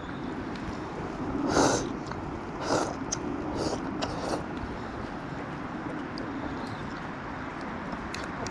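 Someone slurping hot hotpot soup: two loud slurps about a second apart, then a few softer sips, over a steady background hiss.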